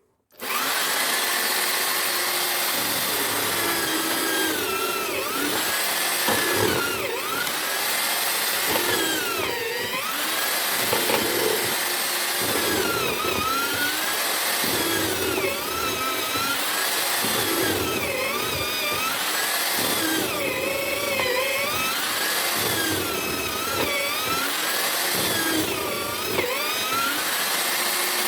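Electric drill motor of a homemade hollow-chisel mortiser starting abruptly, then running and cutting mortises in wood. Its whine dips in pitch and recovers every couple of seconds as each plunge of the chisel loads the motor.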